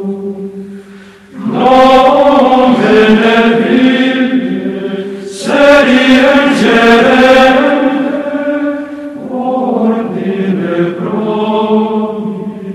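Soundtrack music of voices chanting in long held notes over a steady low drone, swelling in three phrases a few seconds apart.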